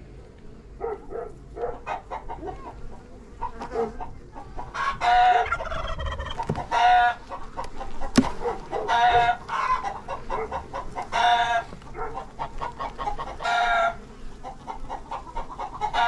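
Chicken calling loudly, a call roughly every two seconds from about five seconds in, with quieter calls in between.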